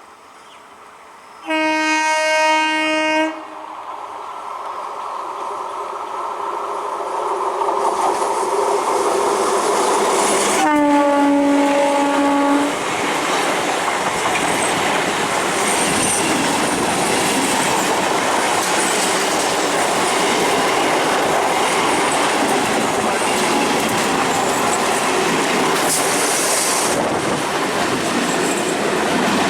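Indian Railways ICF electric multiple unit (EMU) local trains: a horn blast of about two seconds near the start and another about eleven seconds in, while a train runs past close by, its wheels clattering over the rail joints in a steady loud rumble.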